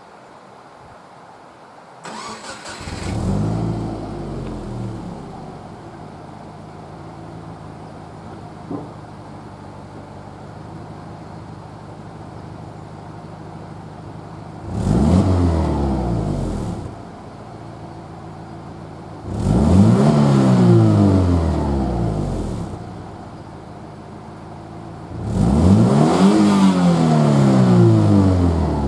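Subaru Legacy B4 2.0R's flat-four engine, breathing through a modified stock muffler from an EJ25 Legacy, starting about two seconds in with a brief flare and then idling. It is then revved three times, each rev climbing and falling back to idle.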